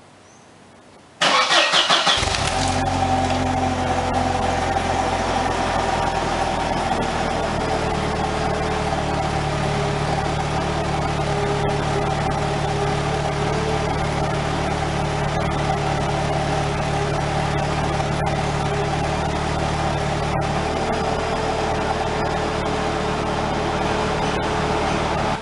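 Mercedes-Benz C230 Kompressor's supercharged 2.3-litre four-cylinder engine cranking briefly and starting about a second in, then idling steadily.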